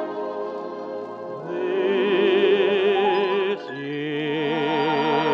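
A tenor singing a slow ballad with orchestra, holding long notes with wide vibrato, and a short break about three and a half seconds in before the next phrase.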